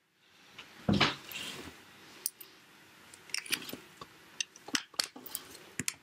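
Handling of art tools and paper on a tabletop: a dull thud about a second in, then scattered small clicks and taps.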